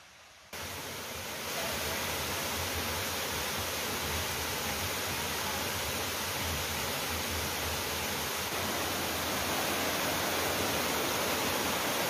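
Waterfall cascading over rock steps: a steady rush of water that cuts in suddenly about half a second in and gets a little louder a second later.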